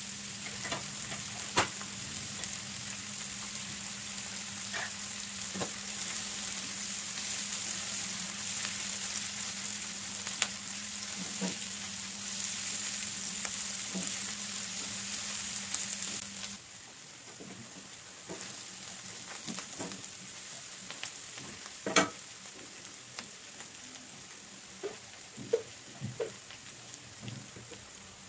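Vegetables sizzling as they stir-fry in oil in an aluminium kadai, with the clicks and scrapes of a spatula against the pan. About two-thirds of the way through, the sizzle and a steady low hum stop abruptly. Quieter stirring clicks follow, including one sharp knock.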